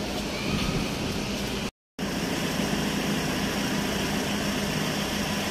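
A vehicle engine idling steadily under a broad outdoor hiss. The sound breaks off for a moment about two seconds in at an edit, then carries on the same.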